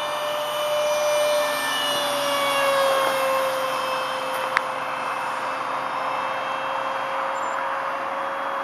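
Electric ducted fan of a StarMax AMX 64 mm, 4S RC jet whining steadily in flight. It grows louder and drops slightly in pitch about two to three seconds in as it passes. A single sharp click comes about halfway through.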